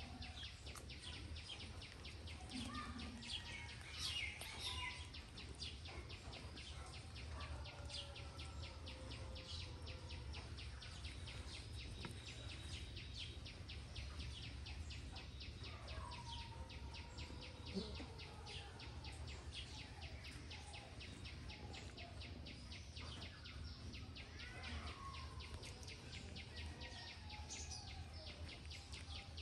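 Faint background ambience: birds chirp and call now and then over a fast, steady, high-pitched pulsing and a low hum.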